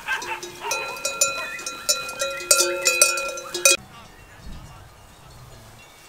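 Bells on a grazing flock of sheep clinking and ringing, many bells at once, until they cut off suddenly after about three and a half seconds, leaving a faint low rumble.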